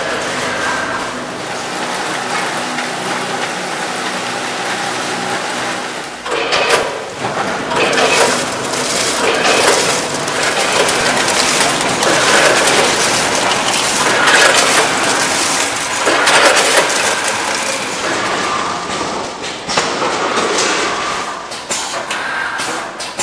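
Automatic snack-chip packing machine (multihead weigher feeding a vertical form-fill-seal bagger) running: a steady mechanical hum at first, then irregular clattering and rattling that grows louder about six seconds in.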